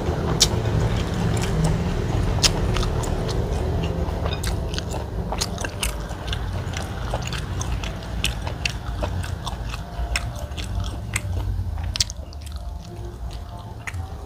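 Close-miked chewing and lip smacks of a person eating goat-meat biryani rice by hand, with scattered sharp clicks over a steady low hum.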